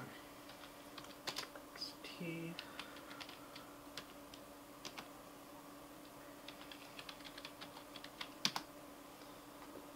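Faint keystrokes on a computer keyboard: scattered single taps, then a quicker run of keys with one louder key strike about eight and a half seconds in.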